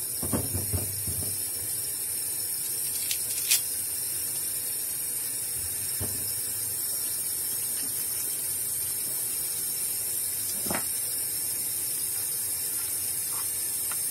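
Kitchen tap running steadily into a stainless steel sink, with peaches being rubbed under the stream. A few short knocks from the fruit being handled.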